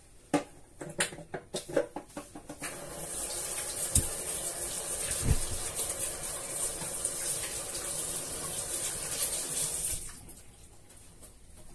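Kitchen tap running into a stainless steel sink while hands are washed under it: a steady splashing hiss that starts about two and a half seconds in and is shut off about ten seconds in. A few sharp clicks and knocks come before the water.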